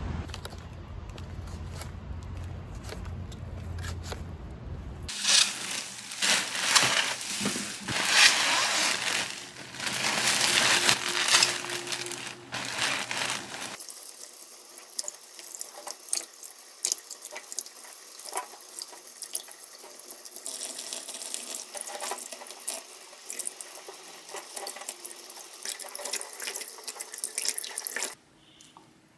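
Kitchen tap running into a stainless-steel sink while small green onions are rinsed and rubbed by hand under the stream, with splashing and dripping. The water is loudest for several seconds, then turns to a thinner trickle with drips and small clicks of handling. It starts about five seconds in, after a low outdoor traffic rumble.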